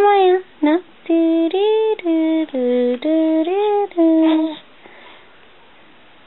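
A voice singing a short tune of about nine separate, steady notes, stopping about four and a half seconds in.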